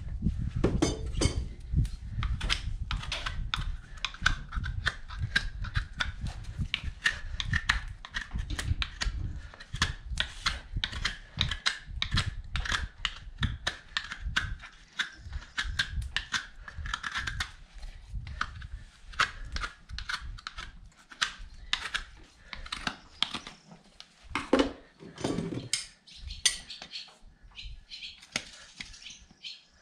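Hoof knife paring the horn of a horse's hoof: a quick run of short scraping, clicking strokes, several a second, thinning out over the last several seconds.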